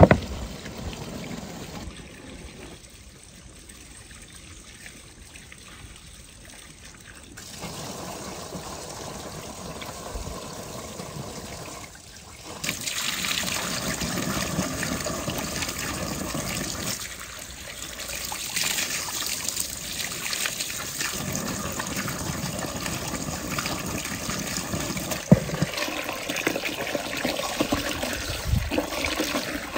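Running, trickling water, its level jumping abruptly several times, with a sharp knock near the start and another, louder one later on.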